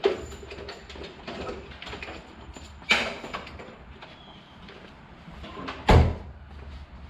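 Knocks and clatters of hands working on the vehicle's body and parts, with a sharp knock about three seconds in and a heavy thud, the loudest sound, about six seconds in.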